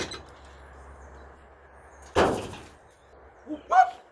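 A single sudden bang or thump about two seconds in, over faint steady background noise, with a short pitched call near the end.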